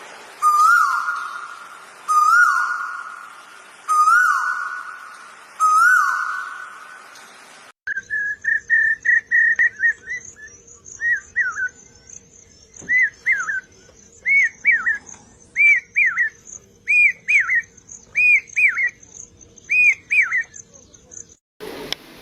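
Bird calls from two different recordings in turn: first four loud whistled calls, each rising then falling, about two seconds apart; then, after a sudden cut, a quicker song of short paired down-slurred whistles about once a second.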